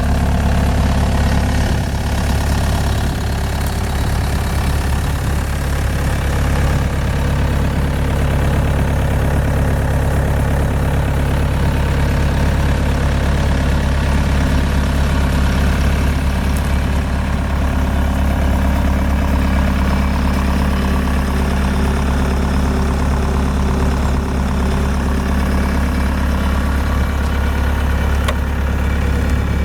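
Bobcat S185 skid steer loader's diesel engine running steadily at idle.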